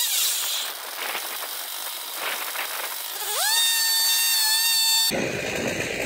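Chainsaw power head of a swingblade sawmill, in sped-up footage, running at full throttle with a high whine. It drops off at the start and runs low and ragged for about three seconds, then revs back up to the same high steady pitch. About a second before the end the sound cuts abruptly to a lower, steadier running noise.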